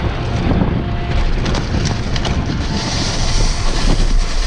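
Wind buffeting the microphone and knobby tyres rolling fast over a dirt trail on a downhill mountain bike, with short rattles and knocks from the bike over bumps.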